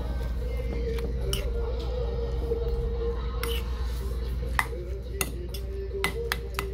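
Metal spoon clinking and scraping against a stainless steel bowl while mixing barley rice, in irregular sharp clinks that come more often in the last couple of seconds. Quiet background music and a steady low hum run underneath.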